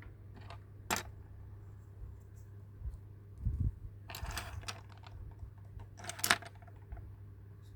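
Small plastic toy pieces handled and set down: a sharp click about a second in, a low thump, and two short scratchy rustles, over a steady low hum.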